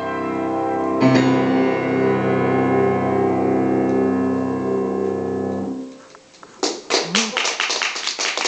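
Grand piano, a Kawai: a final chord is struck about a second in and rings until it is released at about six seconds. The piece has ended, and hand clapping starts shortly after.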